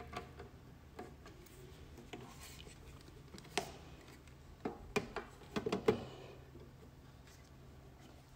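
Small clicks of a screwdriver driving a screw through a rubber corner bumper into a wireless microphone receiver's metal case, then several sharp knocks and clicks about halfway through as the receiver is handled and turned over on a stone tabletop.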